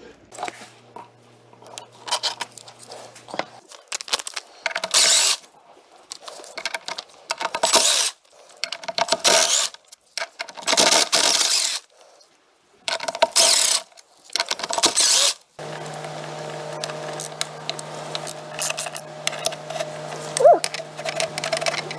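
Cordless power driver spinning bolts out of an aluminium drop-box housing in short bursts, about eight in a row. About two-thirds of the way in, a hand ratchet clicks on the bolts around the input shaft over a steady hum.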